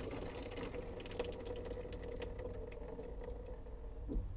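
Water running through a newly installed shower valve and out of the open shower riser, no head fitted, flushing the new lines; a steady hiss with a steady mid-pitched tone. The flow stops with a small knock about four seconds in as the valve is shut off.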